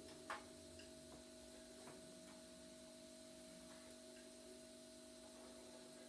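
Near silence: a faint steady hum with a few scattered soft ticks, the clearest a short click about a third of a second in.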